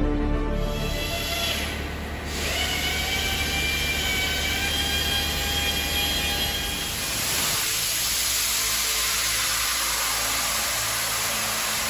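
Ultra-high-pressure (40,000 psi) water jet blasting plastic off an extruder screw: a shrill hiss and whine. The whine rises briefly about two and a half seconds in and then holds steady. About seven seconds in it gives way to a broad hiss.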